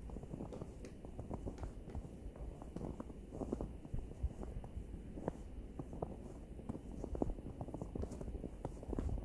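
Footsteps crunching through snow: a steady run of dense, close crackles as boots press into the snow with each stride.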